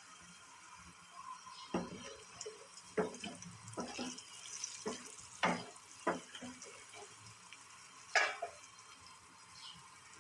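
Wooden spoon stirring sliced garlic in a stainless-steel saucepan, knocking and scraping against the pan about six times, over a faint sizzle of the garlic frying in oil.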